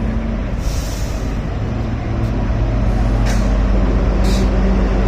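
Diesel-hauled Kalka–Shimla narrow-gauge toy train running: a steady low drone and rumble that grows a little louder, with three short hisses, about a second, three seconds and four seconds in.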